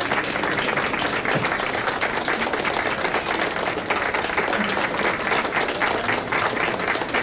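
A small audience applauding, many hands clapping steadily together.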